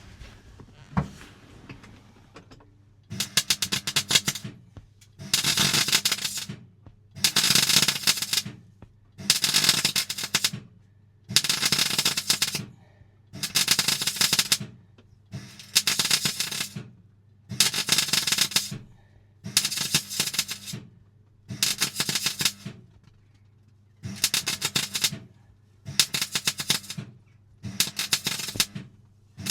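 MIG welder laying short bursts of weld, about thirteen crackling runs of a little over a second each, roughly one every two seconds, typical of stitch or tack welding.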